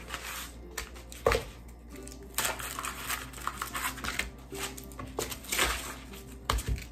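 Wax paper rustling and frozen steak slices knocking on a cutting board as a frozen stack of shaved steaks is pried apart and the paper sheets peeled off, in a handful of short separate sounds. Soft background music plays underneath.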